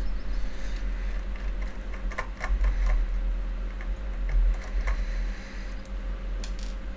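Scattered small clicks and ticks of a screwdriver working screws out of the back of a graphics card, with the card and tools being handled, over a steady low rumble.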